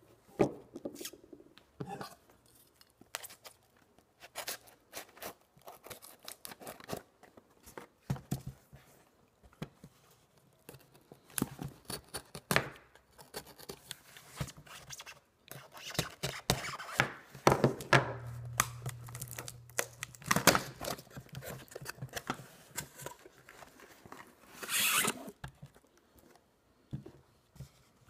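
A small tape-wrapped cardboard shipping box being opened by hand on a table: irregular cutting, tearing and scraping as the packing tape is worked off, with knocks of the box on the tabletop and a longer, louder rustling tear near the end.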